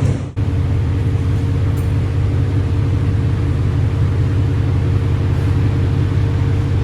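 2011 BMW M3 (E90) with its S65 V8 on the stock exhaust, driving at a steady speed: a steady low drone of engine and road noise with no revving. There is a brief break just after the start.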